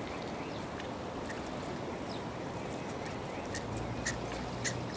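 Steady rush of a fast-flowing, flooded river, with a few sharp clicks near the end as the fishing rod and tackle are handled.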